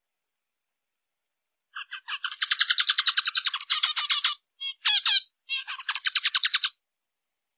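Zebra finch song starting about two seconds in: a fast, even run of short chattering notes lasting about two and a half seconds, then a short break and a few briefer phrases of the same notes.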